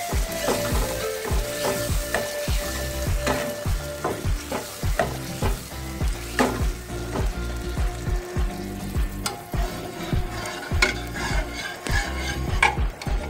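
Steel ladle stirring and scraping a thick onion-tomato masala that sizzles in a kadhai. The ladle scrapes and knocks against the pan over and over, with a steady frying hiss underneath.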